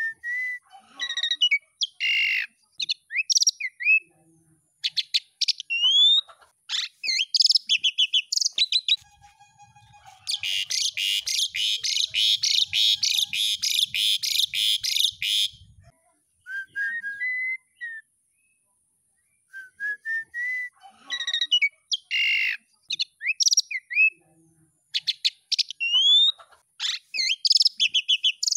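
Asian pied starling (jalak suren) singing: clear whistled notes and slurred rising and falling whistles, broken in the middle by a fast chattering run of rapid notes that lasts about five seconds. The opening run of whistles comes round again near the end.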